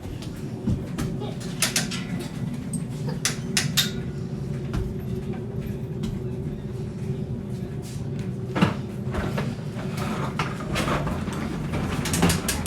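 Hard metal knocks and clicks, several of them scattered irregularly, from stage light fixtures being handled and fitted to a lighting stand, over a steady low hum.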